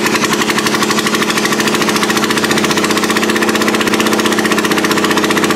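Club Car DS golf cart's single-cylinder four-stroke engine running steadily and loud with no exhaust or muffler fitted, a rapid even firing. It runs on a newly fitted ignition coil, showing that the replacement coil gives spark.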